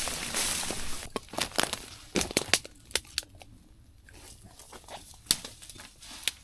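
Dry brush and twigs rustling, crunching and snapping as someone pushes along an overgrown trail through thorny bushes: a brief rustle of vegetation at first, then a scatter of sharp snaps and crunches.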